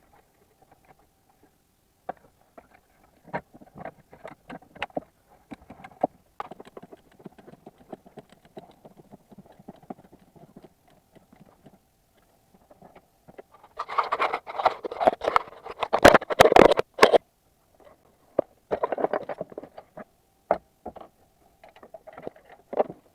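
Hand tools working on metal: irregular clicks and knocks, with a dense stretch of rapid clicking and rattling about two-thirds of the way through.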